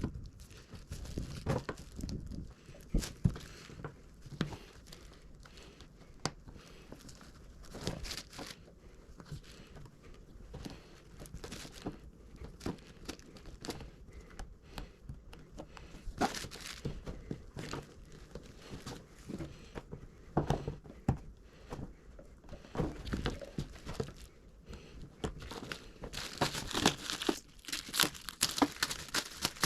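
Tape being torn, peeled and crumpled by hand, with scattered small knocks from handling, and a denser stretch of crinkling near the end.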